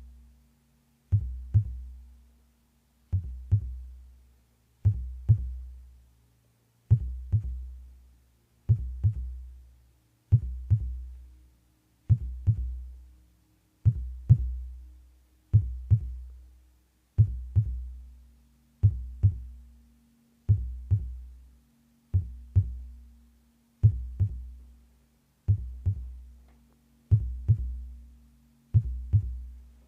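Heartbeat: a slow, steady double thump, lub-dub, about every 1.8 seconds, each beat with a deep low boom that fades before the next. A faint steady hum lies underneath.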